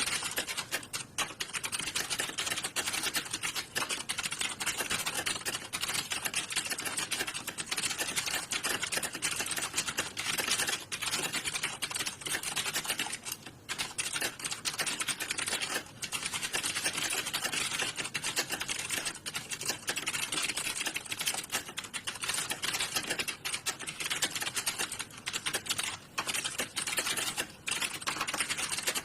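Many computer keyboards being typed on at once: a dense, continuous clatter of overlapping keystrokes with hardly a pause.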